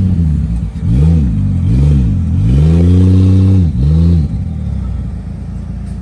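Off-road 4x4 race truck's engine revved in about five short blips, each rising and falling, the longest held for about a second. After about four seconds it drops back to a steady lower running sound.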